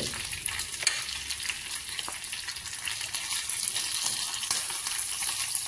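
Oil sizzling steadily around chicken leg pieces shallow-frying in a frying pan, a continuous fine crackle with a couple of faint ticks.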